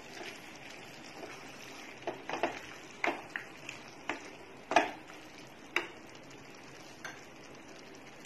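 A spatula stirring paneer and capsicum curry in a stainless steel pan, knocking and scraping against the pan about eight times in the second half, loudest near the middle, over a faint steady sizzle of the simmering food.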